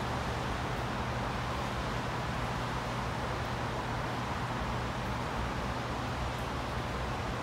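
Steady distant rumble: a constant low hum under an even hiss, with no horn or other sudden sounds.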